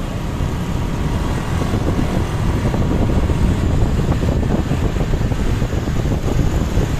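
Road vehicle noise: a steady low rumble of a vehicle running on the road, with wind buffeting the microphone.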